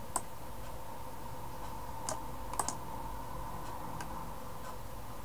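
About five scattered, sharp computer mouse clicks over a steady faint electrical hum.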